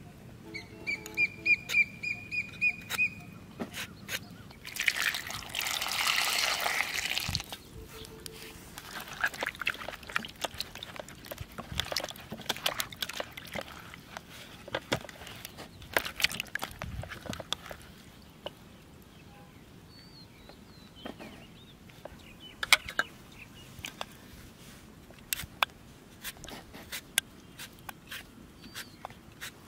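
A burst of splashing water about five seconds in, then water sloshing and scattered clicks as peeled raw mangoes are rubbed and washed by hand in a plate of water. Near the end come the small scrapes and clicks of a metal Y-peeler taking the skin off a raw mango. A bird calls briefly near the start.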